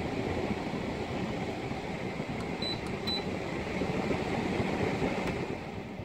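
Haier 12,000 BTU window air conditioner's fan running with a steady whoosh, fading near the end. Two short high beeps sound about two and a half to three seconds in.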